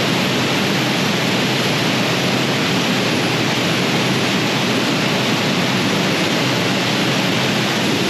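Steady, loud rush of fast-flowing river water churning white over rocks.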